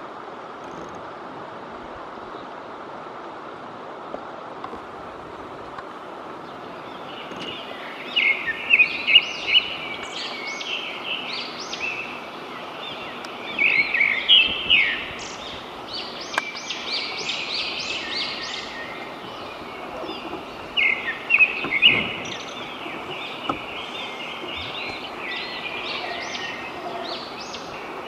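Birds calling in repeated bursts of quick, high notes, starting about a quarter of the way in, over a steady background hiss of outdoor ambience.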